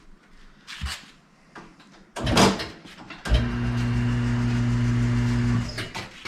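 Tire changer's turntable motor running with a steady hum for about two and a half seconds, turning the rim to work the tire bead on, then cutting off. About two seconds in, a short loud burst of noise comes first.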